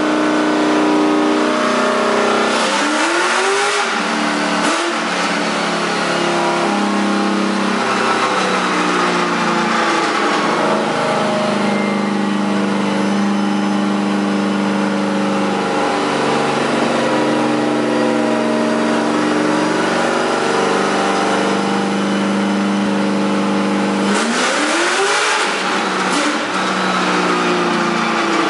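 LS V8 engine of a BMW E46 drift car running on a chassis dyno, held at a steady speed. The revs briefly rise and fall about three seconds in and again near the end.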